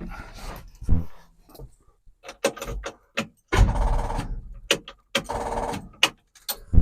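Ignition keys rattling and clicking, then the starter cranking the 1972 Chevrolet Cheyenne's engine in two short bursts, about three and a half seconds in and again just after five seconds, without it catching: the battery is too weak to start it.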